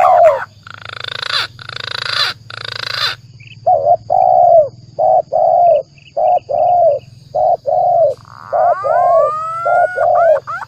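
Bird-lure recording of spotted dove (tekukur) and green pigeon (punai) calls. Three harsh, raspy notes come first, then a long run of short repeated coos, with rising whistled glides layered in near the end.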